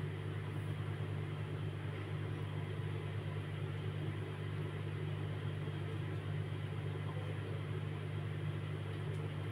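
Steady low hum with a faint even hiss: room background noise, unchanging throughout.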